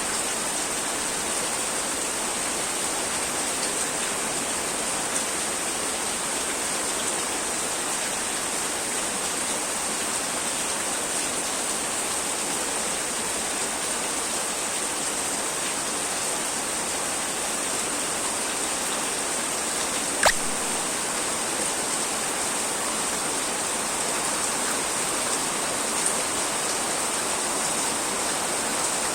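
Steady rain falling, an even hiss with a bright high edge, with a single sharp click about twenty seconds in.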